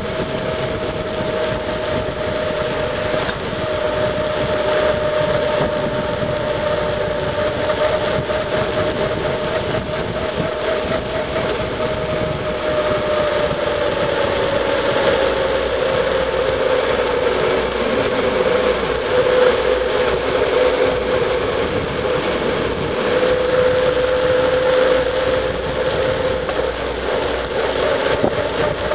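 Bicycle coasting fast down a paved road: a steady rush of wind and road noise with a humming tone that drops slightly in pitch about halfway through.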